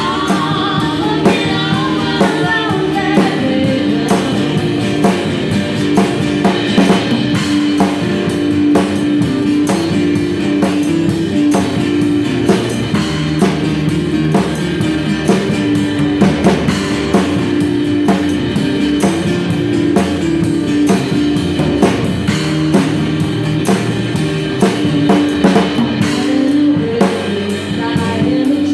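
A live band playing a song: a drum kit played with sticks up close, keeping a steady beat, over upright double bass and acoustic guitars, with a woman singing.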